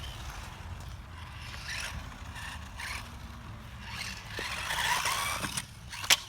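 Losi Mini B RC buggy driving over rough ground: tyres scraping and crunching, building to a longer skid about five seconds in, over a steady low rumble, with a couple of sharp knocks near the end.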